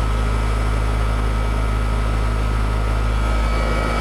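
Carrier Tech 2000 heat pump outdoor unit running up close: a steady low hum with a thin high tone above it, its small fan turning.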